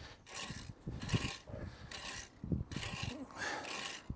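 Faint, irregular rustling and scraping from hedge clippings being gathered up by hand.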